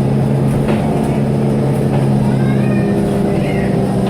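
Scania L94UB city bus engine running with a steady drone, a few light clicks over it.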